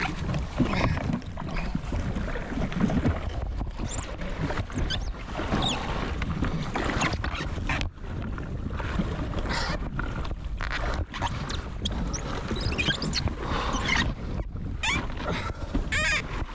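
Wind buffeting the microphone and water washing against a jet ski's hull while a large wahoo is gaffed and dragged aboard, with a few knocks and splashes from the struggle.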